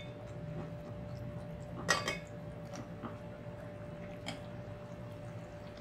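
A metal spoon stirring beef in thick gravy in a metal cooking pot, clinking against the pot a few times, loudest about two seconds in, over a steady low hum.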